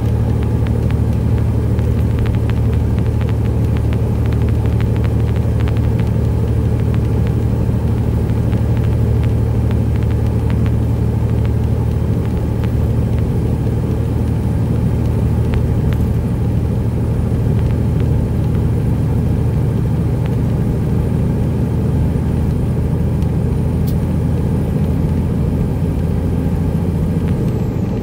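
Detroit Series 60 diesel of a 1999 Peterbilt 379 with straight pipes, running steadily under way with a deep, even drone heard from inside the cab. Near the end the drone dips briefly in level and pitch.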